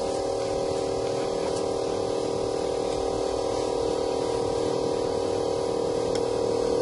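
Steady hum of a Triangel LCD screen separator machine running with its vacuum pump on, holding the phone's glass down on the heated plate. The pitch and level stay even throughout.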